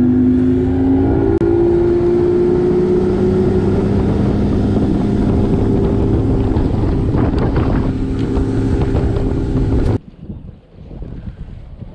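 Bass boat's outboard motor running at speed over the lake with wind and water rush: a steady engine note that creeps up in pitch over the first few seconds and then holds. It cuts off suddenly about ten seconds in, leaving faint wind.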